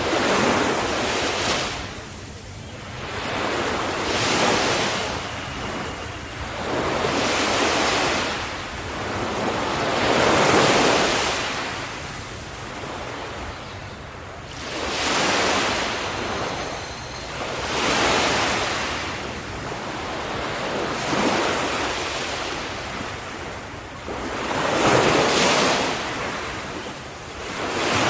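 Ocean waves breaking on the shore, each surge of surf swelling and falling away every three to four seconds, with light wind on the microphone.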